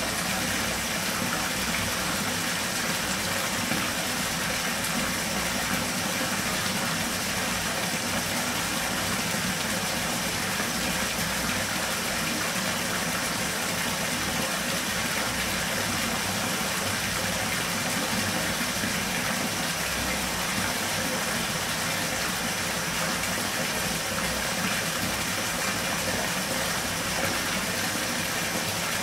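Bathtub filling from its faucet: a steady, unbroken rush of water pouring into shallow bathwater.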